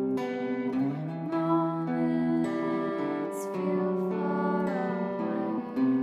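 Solid-body electric guitar playing a slow chord progression, the chords changing about once a second, with a few notes sliding into the next chord.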